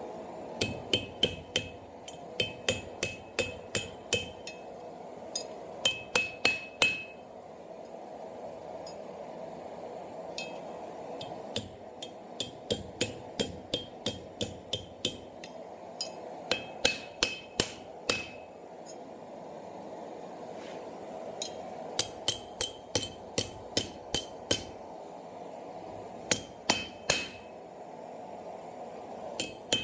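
Hand hammer striking a steel bar on an anvil while forging the curl of an S-hook, in bursts of several blows about three a second, each with a short metallic ring, with pauses between bursts. A steady hum runs underneath.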